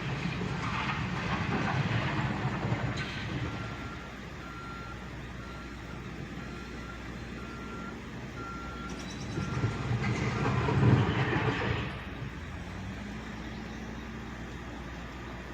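Backhoe's diesel engine working, rising in loudness in the first few seconds and again around ten seconds in. Between the two surges its back-up alarm beeps steadily, about twice a second, as the machine reverses.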